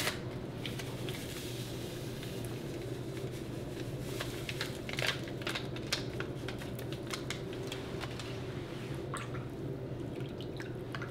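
Hands sprinkling seasoning over raw goose breasts in water in a slow-cooker crock and working it into the wet meat: scattered small crackles and soft wet squishes over a steady low hum.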